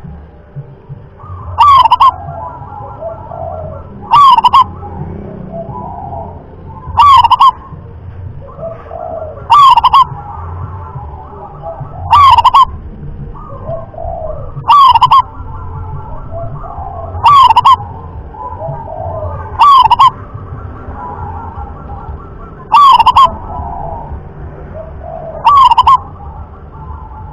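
Local zebra dove (perkutut lokal) singing its song over and over: soft, quick cooing notes between loud, short calls that come about every two and a half seconds, ten times in all.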